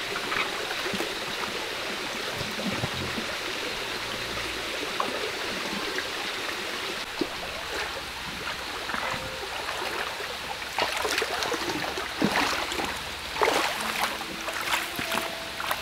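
Small rocky stream running steadily, with a scatter of sharp clicks and knocks in the second half.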